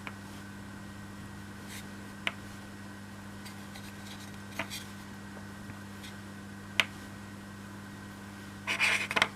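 Small laser-cut MDF pieces being handled and fitted on a tabletop: a few separate light clicks, then a brief clatter of taps near the end, over a steady low electrical hum.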